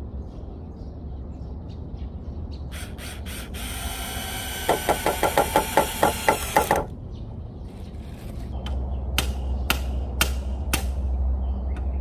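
Cordless drill/driver driving a screw into a wooden slat: a few short trigger blips, then a steady whine with a pulsing rattle about five times a second for roughly three seconds that stops abruptly. About two seconds later come four sharp knocks, about half a second apart.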